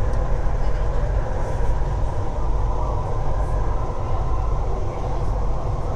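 Kuala Lumpur metro train running, heard from inside the car: a steady low rumble with a faint steady whine.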